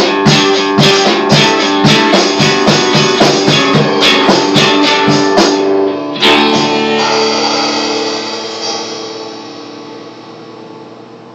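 Acoustic guitar strummed in a steady rhythm, then one final strum about six seconds in that rings out and slowly fades: the song's ending.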